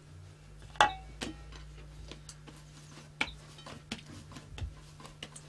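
Hands working in a shallow metal pan: scattered light clicks and knocks, one about a second in ringing briefly like struck metal, over a faint steady low hum.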